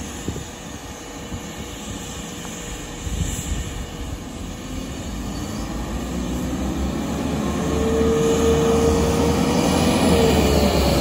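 Transport for Wales Class 197 diesel multiple unit coming slowly towards the listener and drawing alongside, its engine and wheels on the rails growing steadily louder. A high steady whine comes in about eight seconds in.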